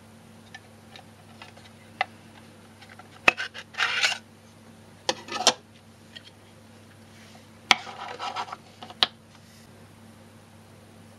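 A small metal tin being handled and opened by hand: a few sharp metallic clicks and two short stretches of scraping and rubbing as the lid and the cards inside are moved.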